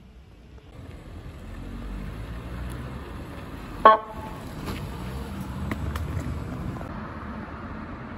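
Unmarked Vauxhall Astra police car driving past with its engine and tyres running, giving one short, loud toot of its horn just before four seconds in.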